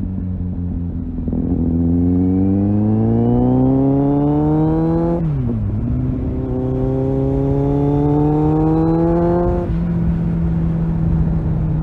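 Kawasaki Z800 inline-four engine, through an aftermarket Tiger exhaust, accelerating hard with its pitch rising, dropping sharply at an upshift about five seconds in, then rising again through the next gear. Near the end the throttle eases and the engine settles into steady running.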